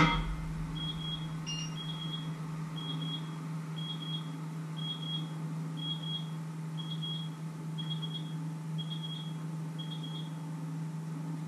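An electronic kitchen timer alarm sounds in short, high double beeps about once a second, stopping near the end, over a steady low hum. A brief clatter comes right at the start.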